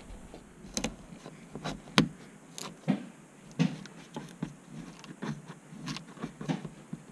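Plastic trim removal tool working along the edge of a car's plastic interior trim panel: a string of irregular clicks and scrapes of plastic on plastic, the sharpest about two seconds in.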